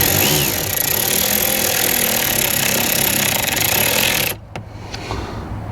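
A hand-held power tool running steadily for about four seconds, then stopping abruptly.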